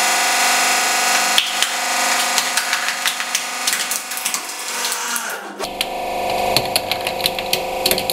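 Hydraulic press ram crushing a plastic toy dinosaur: the plastic breaks in many sharp cracks and snaps, starting about a second and a half in and coming thick again near the end, over a steady machine hum from the press.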